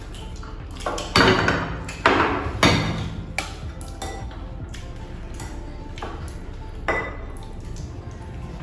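Metal serving spoon clinking against a glass curry bowl and plates as egg curry is served, several sharp clinks in the first three seconds and one more near the end, over quieter handling of dishes.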